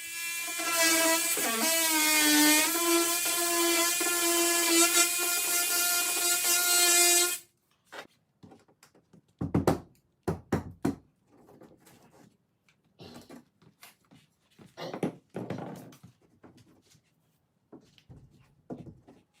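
Cordless oscillating multi-tool cutting an opening in drywall: a steady high whine with a hiss on top, its pitch dipping briefly about two seconds in, cutting off after about seven seconds. Scattered light knocks and taps follow.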